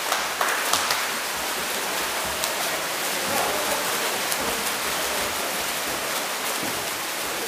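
Water splashing in an indoor swimming pool as water polo players swim: a steady rush with a few short, sharper splashes.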